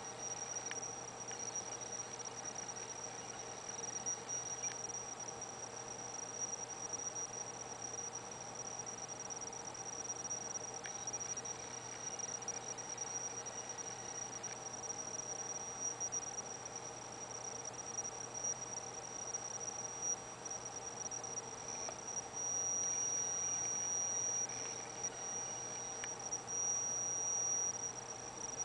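Panasonic Minas MSM021A1E AC servo motor giving off a steady high-pitched whine under its driver, with fainter lower tones beneath. It grows louder for a couple of seconds about two-thirds of the way in and again near the end.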